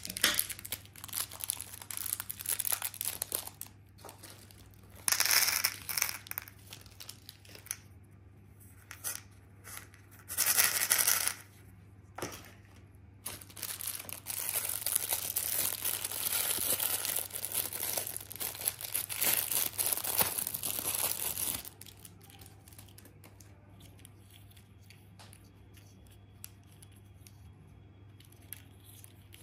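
A purple plastic toy wrapper crinkling and tearing as it is pulled open by hand, in irregular crackles with two short loud tears about five and eleven seconds in. Then comes a long stretch of steady crinkling, and after it the sound drops to faint small plastic clicks.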